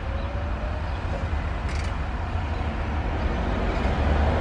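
Steady low rumble of a motor vehicle's engine and road noise.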